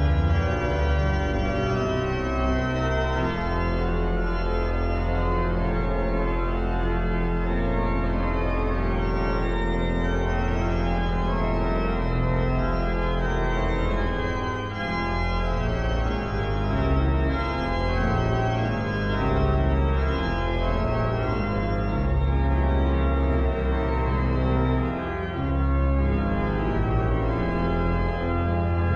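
Pipe organ playing a piece: full sustained chords over a deep pedal bass, the harmony moving every second or so.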